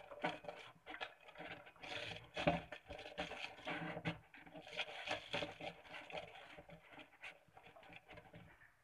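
Plastic hand-operated vegetable chopper handled and worked with green chillies inside: irregular rattling and scraping of plastic, fading near the end.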